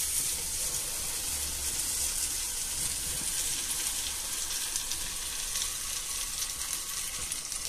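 Potato omelette sizzling in hot oil in a frying pan, a steady hiss, over a low steady hum.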